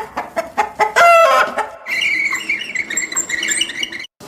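Chickens clucking, with a louder rising call about a second in followed by a run of quick, short calls at one pitch. The sound cuts off suddenly near the end.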